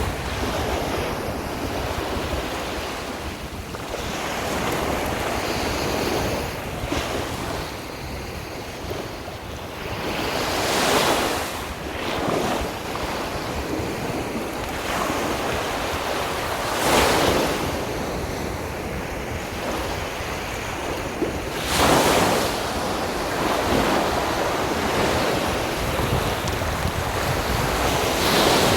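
Sea waves breaking on a beach, the surf swelling in broad surges a few seconds apart, with wind rumbling on the microphone.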